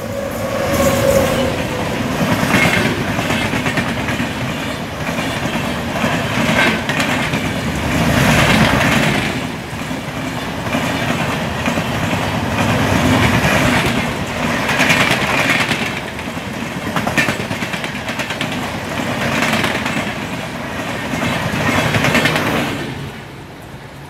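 Express train of red LHB coaches hauled by a WAP-7 electric locomotive passing at speed: a steady rumble and clatter of wheels on the rails that swells and eases in waves as the coaches go by, then fades away about a second before the end.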